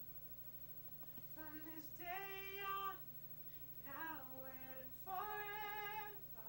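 A man's voice singing unaccompanied in a high register: four short phrases of held notes, each lasting up to about a second, over a faint steady hum.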